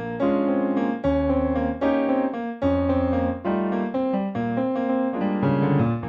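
Solo piano playing a composed piece: a steady succession of chords struck every half second to a second over low bass notes.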